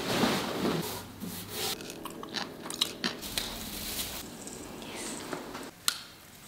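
Close-up rustling of a cloth being handled over a table, then crackling and small clicks of artificial Christmas tree branches being bent into shape, with one sharp click near the end.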